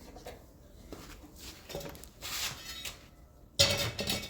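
Metal parts and tools being handled: small scrapes and rubs, then one louder metallic clank with a short ring about three and a half seconds in.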